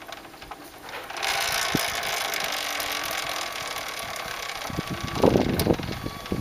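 Honda Super Cub's rear wheel and drive chain running, a steady mechanical whirr that builds about a second in, with a few low clunks near the end.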